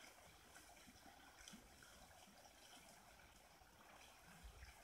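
Faint, steady rush of flowing river water, with a low rumble coming in near the end.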